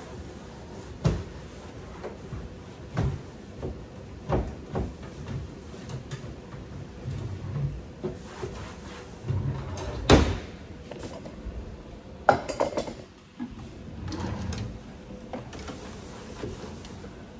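Wooden kitchen drawer being wiped out with a cloth: scattered knocks and bumps of the wood, the loudest about ten seconds in, with cloth rubbing and the drawer sliding between them.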